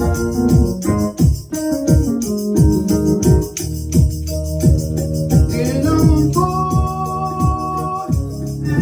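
Electronic keyboard played with an organ-like tone: held chords over a rhythmic bass line. A man's voice sings briefly about six seconds in.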